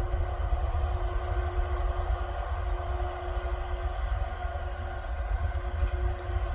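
Transnet class 18E electric locomotive approaching with its freight train: a steady hum over a continuous low rumble.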